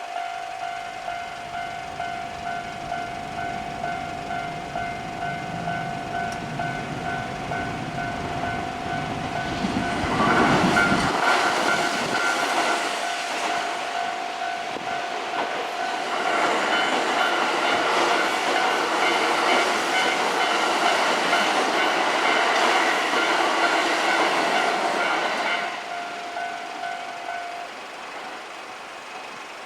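Railway level-crossing warning bell ringing steadily while a train passes, its wheels clattering over the rail joints. The train is loud about ten seconds in and again through the middle, and the bell stops near the end.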